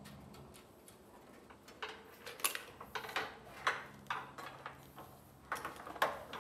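Irregular metallic clicks and clinks of garage-door mounting hardware being handled: a bolt and nut against perforated steel angle iron. They come in a scattered run starting about two seconds in.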